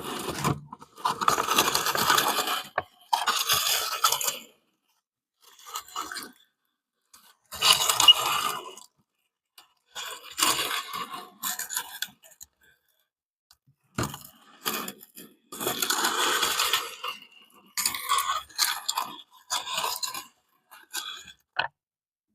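Soft clay being worked through a meat grinder: a series of irregular grinding bursts, each a second or two long, with silent gaps between and a sharp click about fourteen seconds in.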